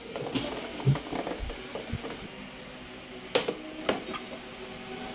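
Plastic fairing trim on a Suzuki Burgman Street 125 scooter being pried up with a plastic pry tool: light scraping and handling noise with sharp plastic clicks, one about a second in and two more half a second apart past three seconds in.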